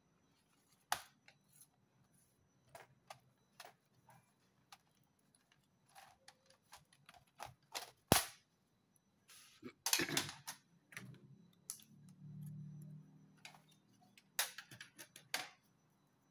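Plastic case of an Acer E5-421 laptop clicking, snapping and knocking as its bottom cover is pried off and the laptop is handled, with one sharp knock about eight seconds in and a scraping sound around ten seconds in.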